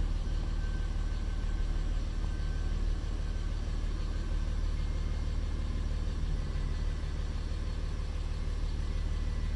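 Dodge pickup's 5.9-litre Cummins inline-six turbo diesel running at a steady low idle as the truck creeps backward in reverse, heard from inside the cab as an even low rumble.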